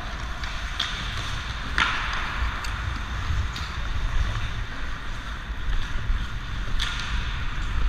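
Hockey skate blades scraping and carving the ice, with wind rumbling over the helmet-mounted camera's microphone. A few short sharp scrapes or clacks stand out, the loudest about two seconds in.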